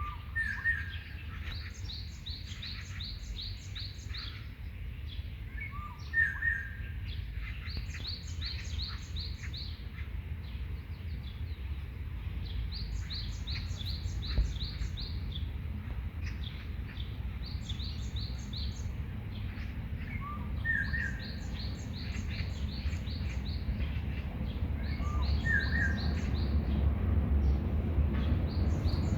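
Songbirds singing: about every five seconds a phrase of six to eight rapid high notes, with short lower calls between them. A low steady rumble runs underneath and gets louder near the end.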